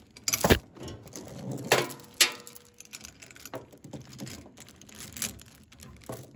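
Loose steel chain clinking and rattling as the excess is wrapped around a ratchet binder's handle, with a few sharper clanks of link on link and metal, the loudest about half a second and two seconds in.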